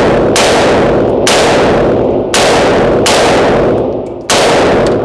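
AK-pattern rifle firing on full automatic in rapid bursts, each about a second long with short breaks between them, echoing off the walls of an indoor range.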